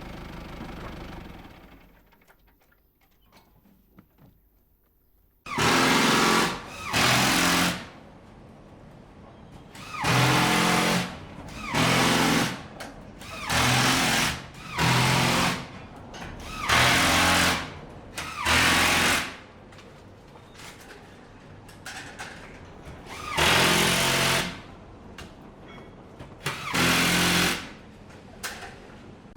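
A hammering power tool, such as a jackhammer, run in about ten short bursts of roughly a second each, with pauses of varying length between them. At the very start a running engine fades out, and a few seconds of near silence follow before the first burst.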